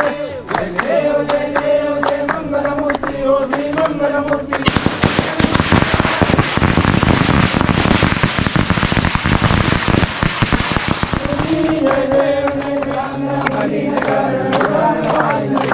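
A group of people singing a devotional aarti together; about four and a half seconds in, a string of firecrackers goes off in a long rapid crackle of sharp bangs that drowns the singing for about seven seconds, and then the singing is heard again.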